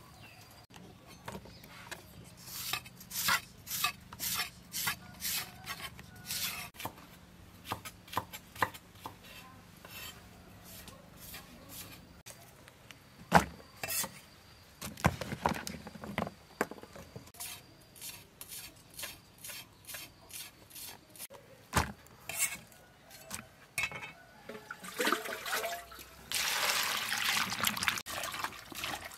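Cut vegetables being handled in plastic bowls and baskets: scattered light clicks and taps. Near the end this gives way to a steadier sloshing and splashing as lotus root stems are washed by hand in a bowl of water.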